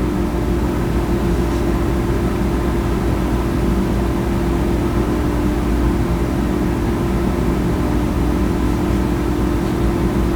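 Steady machine hum with a constant low tone and rumble, unchanging throughout.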